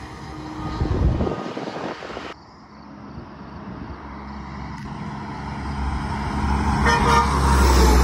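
Semi trucks on a highway: the tail of a truck-mounted train horn fades as one tractor-trailer pulls away, then, after an abrupt cut, another tractor-trailer approaches and passes with a rising engine and tyre rumble and a short horn note about seven seconds in.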